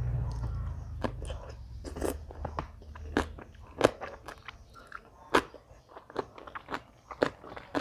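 Close-up eating sounds: a mouth biting and chewing crisp food, with irregular sharp crunches. A low hum underneath fades out about three seconds in.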